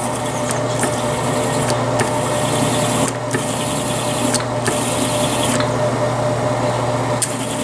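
Small electric motor of a brass case-prep tool running steadily, with a hissing, scraping sound while .223 brass cases are worked against the spinning crimp-removal cutter. The scraping stops briefly two or three times, and there are a few sharp clicks as cases are handled.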